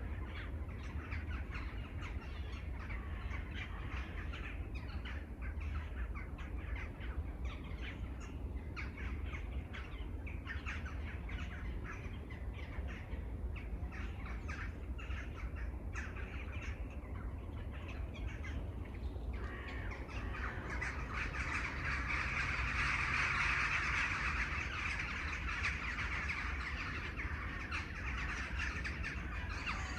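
A large flock of crows cawing over and across one another. About two-thirds of the way in, a denser and louder steady chorus of calls comes in over a constant low rumble.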